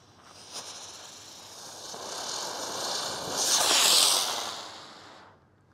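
A Brothers Pyrotechnics plastic ladybug firework burning as it spins up into the air. Its hiss builds to its loudest a little before four seconds in, then fades out near the end.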